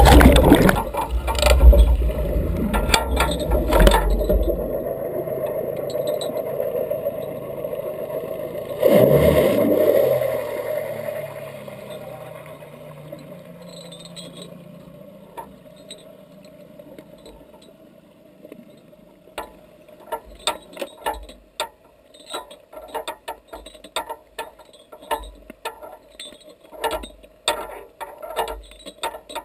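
Sound picked up through a camera's waterproof housing as its metal frame goes under: splashing and low churning at first, another surge about nine seconds in, then a muffled underwater rushing that fades away. In the second half, scattered clicks and light knocks.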